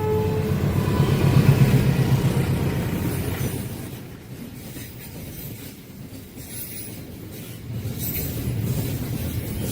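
A passing train: the end of its horn cuts off about half a second in, leaving the low rumble of the train, loudest over the first few seconds, easing off in the middle, then building again near the end.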